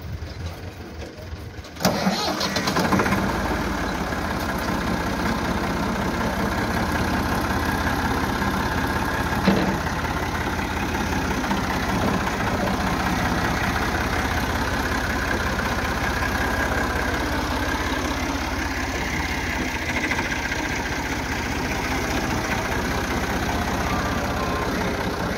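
Massey Ferguson 360 Turbo tractor's three-cylinder diesel engine started on the self-starter, catching suddenly about two seconds in and then running steadily, with one brief knock about nine seconds in.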